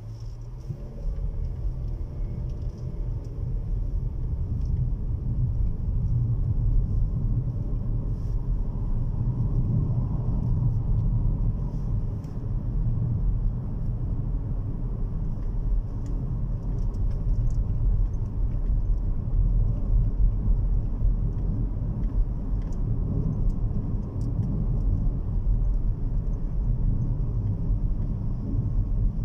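Low, steady rumble of a car driving, heard from inside the cabin: engine and road noise that grows louder over the first few seconds, then holds.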